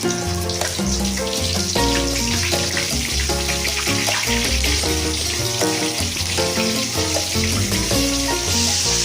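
Breaded chicken pieces deep-frying in hot oil: a steady sizzle with many small crackles, under background music with a bass line.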